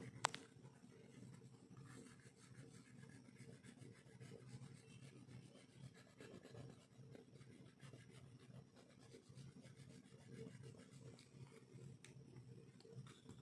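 Faint scratchy rubbing of a colouring pen's tip on paper as an area is filled in with short back-and-forth strokes, with a sharp click just after the start and a smaller one near the end.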